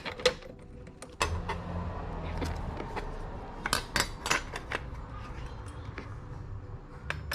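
Irregular light metallic clicks and clinks of hand tools and bolts as the intake pipe is bolted into the engine bay. A low steady hum comes in about a second in.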